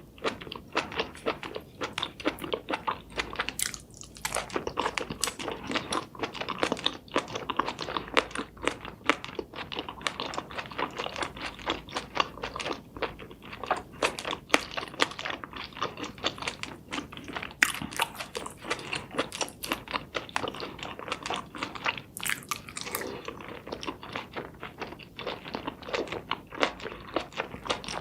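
Close-up eating sounds: someone biting and chewing seafood, with dense, irregular crunchy clicks and wet smacks several times a second.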